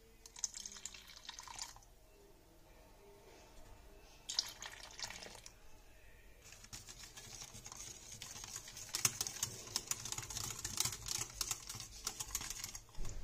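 Milk poured into a metal saucepan of batter in two short splashes. From about halfway on, a wire whisk beats the mixture briskly, with fast clicking of the wires against the pan.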